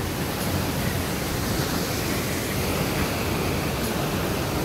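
Waterfall rushing, a steady, even noise of falling water with no change.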